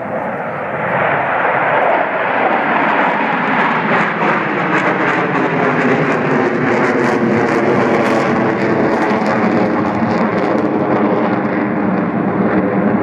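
Four F/A-18 Hornet jets flying overhead in tight formation: a loud jet engine roar that swells over the first two seconds and then holds, with a tone that slides downward as they pass over.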